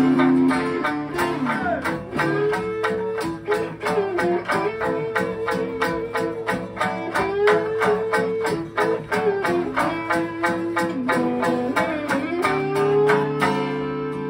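Live acoustic band music: two acoustic guitars strumming a steady rhythm with a sanshin, under a long held melody line that slides up and down in pitch.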